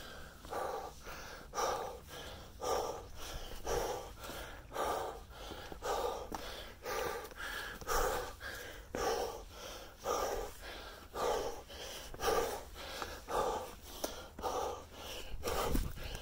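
Hard, rhythmic breathing of a hiker under exertion while climbing, with about one loud breath a second.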